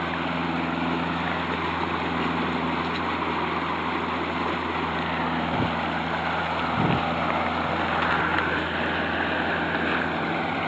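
Water rushing and churning over a concrete weir, with a steady low hum underneath.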